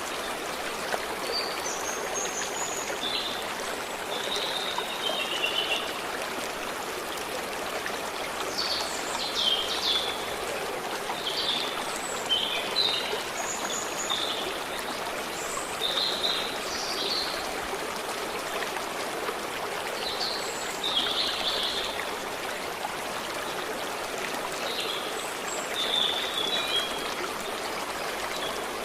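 A stream running steadily with a trickling rush, and songbirds chirping and trilling over it in short bursts scattered throughout.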